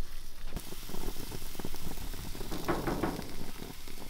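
Bacon-wrapped duck and jalapeño poppers sizzling on a hot gas grill's grates as metal tongs set them down, with light clicks from the tongs.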